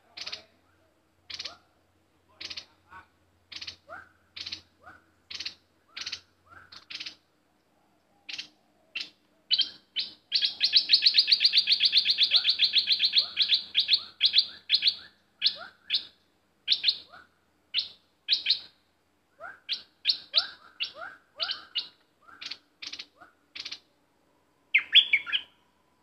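A caged bulbul calling in short, sharp, high notes about once a second. About ten seconds in it breaks into a fast, rapid-fire run of notes lasting several seconds, the loudest part, then goes back to spaced single calls.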